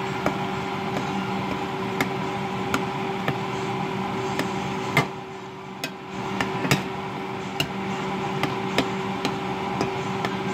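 Metal spoon stirring ground pork and chopped tomatoes in an enamel pot, with irregular clinks and scrapes as it knocks the pot, over a steady hum.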